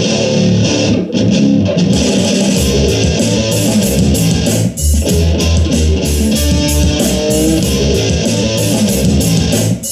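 Music playing loud from a Bluetooth speaker turned up to full volume, with a deep bass line coming in about two and a half seconds in and a brief break near the middle.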